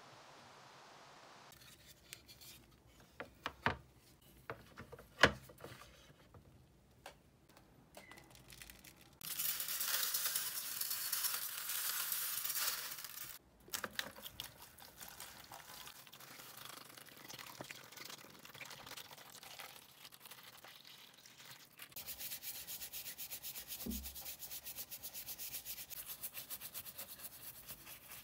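Clicks and knocks of a cordless drill's plastic and metal parts being handled and pulled apart, then a few seconds of loud hissing. After that, water is poured over the plastic housing halves, and near the end a brush scrubs them in soapy water with quick, even rubbing strokes.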